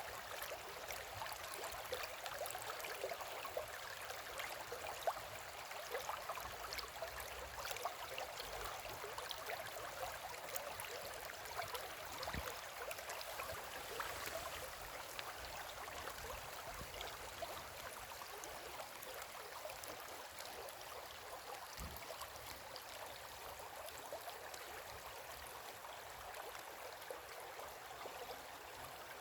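Shallow river flowing steadily, a continuous babbling and splashing over stones.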